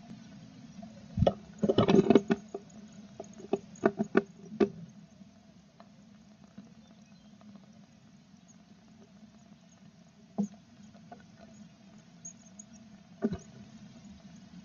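Scratching and sharp knocks of tits moving about inside a wooden nest box, clustered about two seconds in and around four seconds, with single knocks near ten and thirteen seconds, over a faint steady hum.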